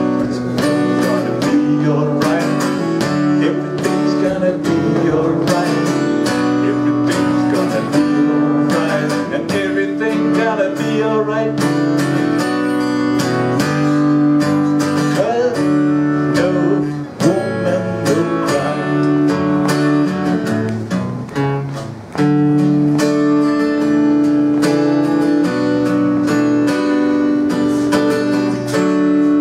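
Acoustic guitar strummed in a steady rhythm of chords, an instrumental passage between sung lines, dropping away briefly twice past the middle.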